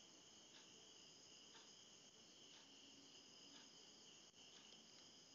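Near silence, with the faint, steady high-pitched chirring of crickets pulsing about once a second.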